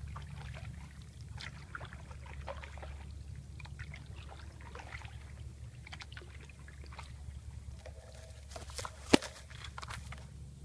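Canoe being paddled through still swamp water: small splashes, drips and trickles from the paddle over a low steady rumble, with one sharp knock about nine seconds in.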